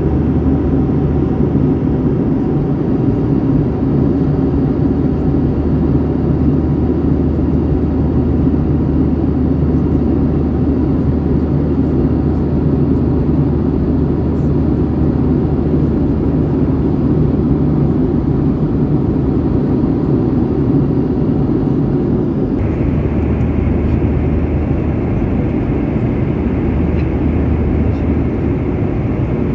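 Steady drone of a Boeing 737-800 airliner's engines and airflow, heard from inside the passenger cabin. About two-thirds of the way through, a higher steady hiss joins the drone and holds.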